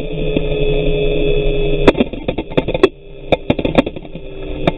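Four electric motors of a large RC flying boat running with a steady hum, dipping briefly near three seconds in. From about two seconds in, a string of sharp slaps cuts in over the hum: water hitting the hull and the camera.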